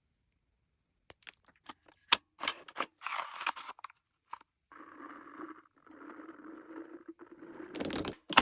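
Toy P90 gel blaster being handled, with a string of sharp clicks and knocks, then two bursts of about a second each of steady whirring, and a loud sharp snap near the end.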